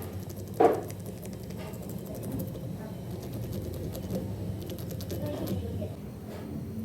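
Hand tools knocking during heavy-duty tyre repair work: one sharp knock about half a second in, then faint scattered clicks over a steady low hum.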